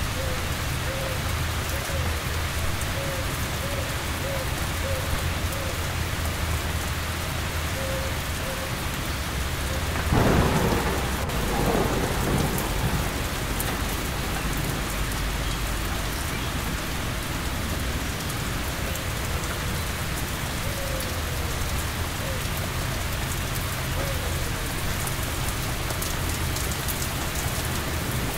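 Steady rain falling, with a clap of thunder about ten seconds in that rumbles on for a couple of seconds before fading back under the rain.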